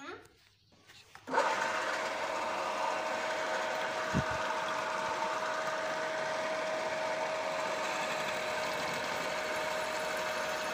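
Drill press motor starting about a second in and running steadily with a constant whine while the bit drills into a cast tractor leveling-box housing clamped in a vise. There is a single low knock about four seconds in.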